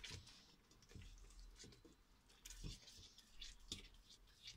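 Spoon stirring thick tomato sauce in a stainless steel pot: faint, irregular squelching and scraping with soft knocks against the pot as the tomato paste is stirred in to dissolve.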